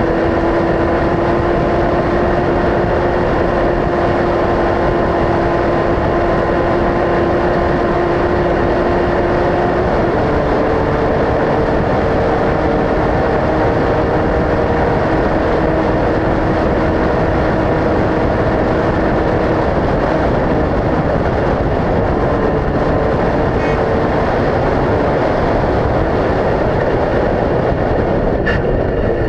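Off-road race vehicle engine running hard at steady revs under a loud rushing noise, with the engine note changing pitch about ten seconds in.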